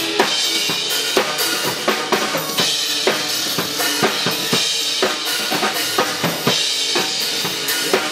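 Drum kit played live over backing music: a steady beat of kick drum and snare with cymbals washing on top.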